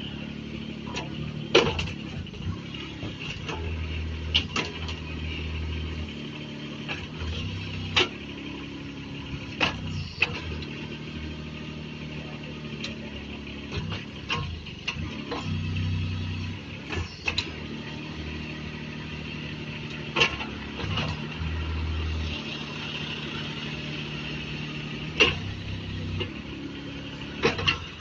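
Kubota D722 three-cylinder diesel on a small mini excavator running steadily while the boom, arm and swing are worked. A deeper rumble comes and goes every few seconds as the hydraulics take load, with sharp metallic clanks at irregular intervals.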